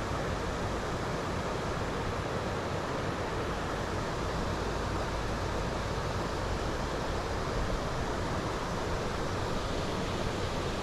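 Steady wind rushing, with low rumbling gusts buffeting the microphone.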